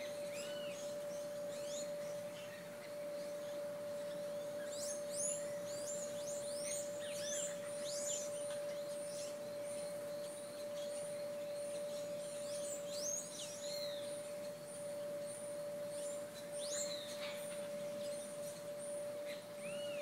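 Birds calling in a tree: bursts of short, arching high whistles and chirps, busiest a few seconds in and again near the middle. A thin high note repeats a little more than once a second through most of it, over a steady hum at one pitch.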